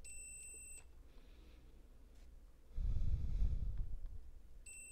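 Digital multimeter's continuity beeper sounding twice, a steady high beep of under a second at the start and another near the end, as the probes bridge circuit board traces: the traces conduct. About three seconds in, a louder low breathy rumble lasts about a second.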